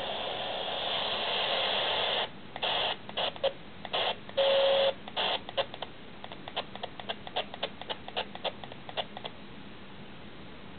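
Handheld radio hissing with static that cuts off suddenly about two seconds in. A run of short bursts of static and clicks follows, with a brief beep about four and a half seconds in.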